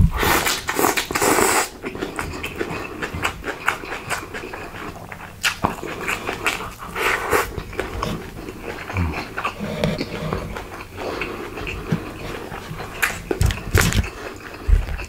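Close-miked eating: wet chewing and smacking of food, with a crunchy burst in the first second and a half and a few low thumps near the end.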